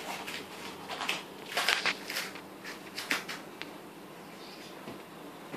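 A toddler moving about and handling things: a string of short rustles and light knocks, loudest about two seconds in, over a faint steady low hum.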